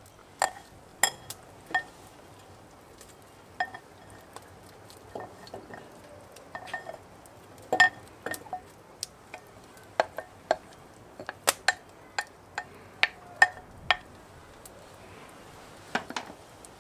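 Metal cooking utensils clinking and tapping on a hot steel brasero plate while vegetables are stirred: a string of irregular, sharp clinks.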